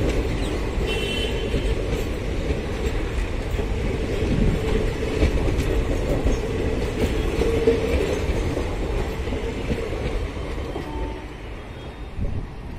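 Passenger train coaches rolling past close by, a steady rumble of wheels on the rails that drops away near the end as the last coach passes.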